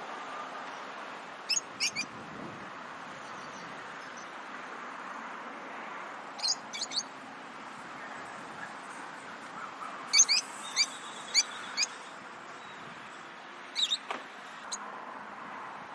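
Lovebirds chirping: four bursts of short, sharp, high-pitched chirps a few seconds apart, over a steady background hiss.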